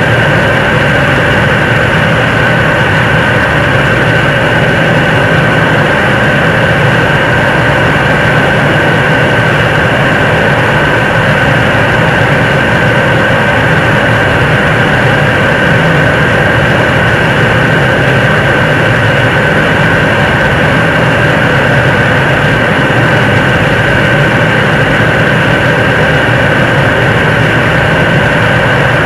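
Nuri launch vehicle's third-stage 7-tonne-class liquid rocket engine firing in a long steady burn on an altitude-simulation test stand: a loud, unchanging rush of exhaust with a steady high whine running through it.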